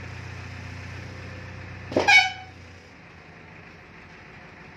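A vehicle horn gives one short blast about two seconds in, the loudest sound here. Under it a steady low machine hum runs and dies away about a second later.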